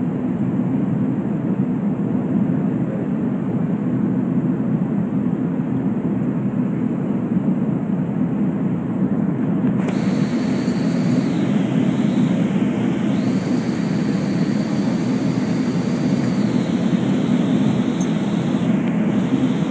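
Airliner cabin noise on final approach: a steady low roar of engines and airflow heard from a passenger seat. About halfway through it turns brighter, with more hiss on top.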